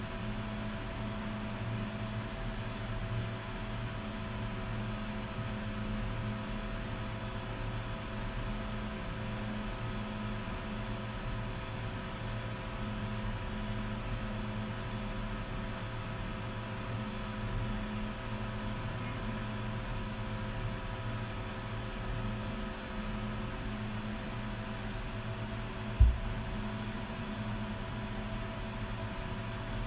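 XT-D3 Pro dual-extruder 3D printer running, its fans and stepper motors making a steady hum with several constant whining tones. A single dull thump near the end stands out above it.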